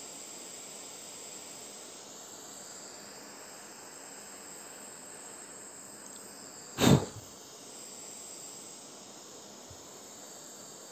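Steady hiss of a handheld gas torch flame, with a brief loud rush of noise a little under seven seconds in as the flame engulfs a small plastic toy.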